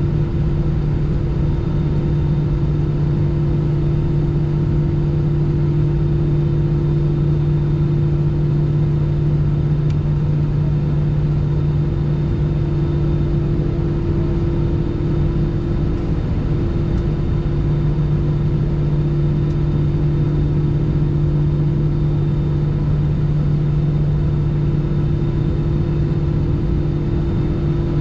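Airbus A319's jet engines idling on the ground, heard inside the cabin over the wing: a steady drone with two strong low hums that hold the same pitch throughout.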